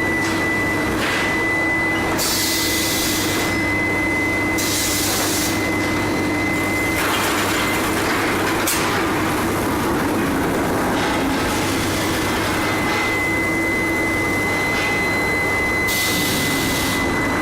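Induction steel billet heating furnace running: a steady high-pitched whine over a mechanical rumble and hum, with three short bursts of hiss.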